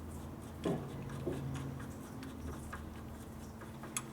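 Faint clicks and light taps of small metal hardware and brackets being handled and fitted, over a steady low electrical hum.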